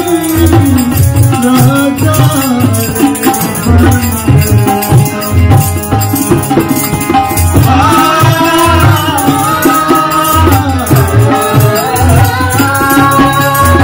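Devotional Hindu song: a voice singing a melody over a steady hand-drum beat and rattling percussion.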